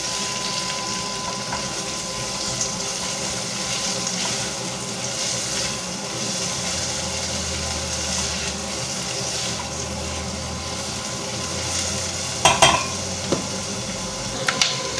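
Chopped onion sizzling in hot oil in a pot as it sweats and starts to brown, a steady frying hiss. A brief clatter comes about twelve seconds in.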